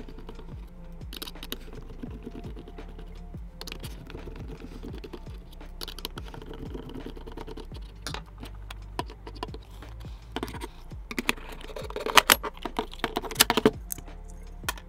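Crosshead screwdriver and the casing parts of a Bush portable Bluetooth speaker being handled: a string of small clicks, taps and scrapes as the end screws are undone and the casing band is pulled off. The clicking is busiest and loudest in the last few seconds.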